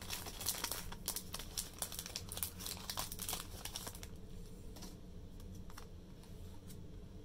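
Crinkling and rustling of a foil booster pack and Pokémon trading cards being handled, busiest in the first half and thinning out after about four seconds.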